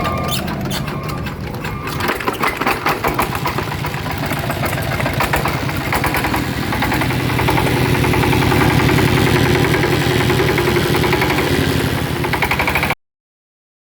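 Yamakoyo ZS1130G single-cylinder diesel engine starting up: it fires in uneven pulses about two seconds in, then picks up speed into a steady, louder run. The sound cuts off suddenly near the end.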